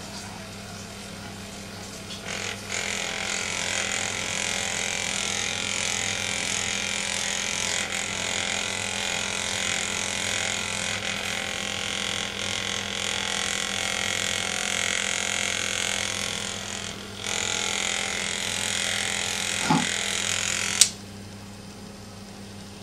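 Small electric motor of a handheld Magnessage massager buzzing steadily while held against a cat, growing louder about two seconds in. It cuts off suddenly with a sharp click near the end.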